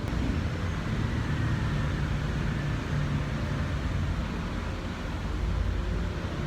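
Kawasaki ZX-10R's inline-four engine running steadily.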